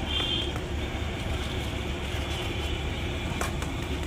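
Steady street ambience dominated by a low traffic rumble, with a brief high-pitched tone near the start and a couple of faint clicks near the end.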